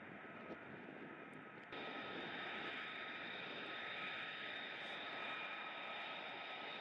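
F-35 fighter jets taxiing, their F135 turbofan engines giving a steady high whine over a rushing hiss. The sound steps up suddenly and gets louder about two seconds in.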